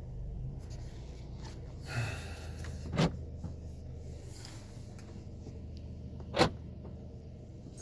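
Mercedes C180 engine idling after start-up, confirming the battery still has enough charge, with a few sharp knocks: a light one about two seconds in, and louder ones about three seconds in and near the end.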